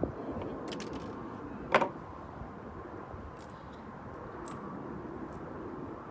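Small clicks and light rattles of gear being handled, with one short, louder clatter just under two seconds in.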